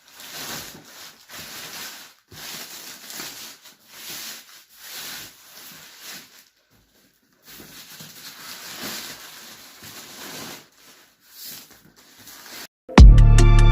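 Polythene wrap rustling and being pulled off a cardboard box in a series of short scrapes, with a pause midway. Loud music with a heavy bass beat starts near the end.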